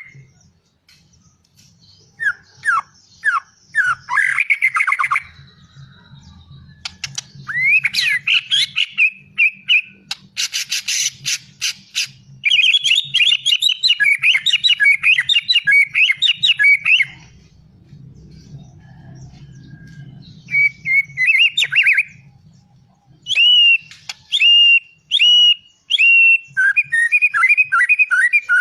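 A murai, a songbird of the shama and magpie-robin group, singing loudly in varied whistled phrases and fast trills, with a rapid run of clicking notes about ten seconds in and short pauses between phrases. A faint low hum runs underneath for much of the time.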